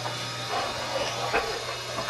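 Concrete roof tiles knocking as they are set onto a running ladder conveyor, over the steady hum of its motor; a few sharp knocks, the plainest about a second and a half in.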